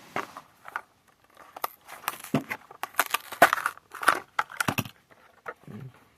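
Hot Wheels blister pack being opened by hand: plastic blister and cardboard card crinkling, cracking and tearing in an irregular run of sharp crackles and rips, busiest in the middle stretch.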